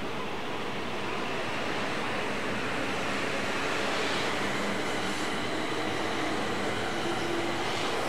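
E6 series Komachi shinkansen train pulling out of the station, its cars rolling past at close range with a steady rumble of wheels on rail that slowly grows louder.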